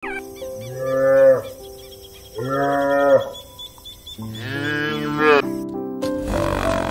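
A cow mooing three times in long, drawn-out calls, the third the longest, over light background music.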